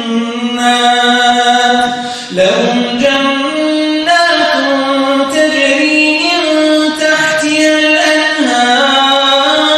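A solo male reciter chanting the Quran in a melodic tajweed style, holding long notes that step slowly up and down in pitch, with one short pause for breath a little over two seconds in.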